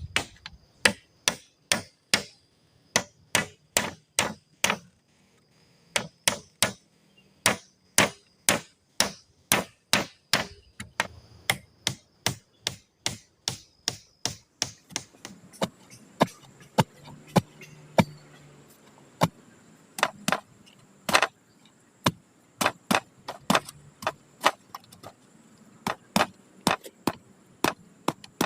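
Repeated chopping or pounding strikes on wood, about two a second, with a few short pauses.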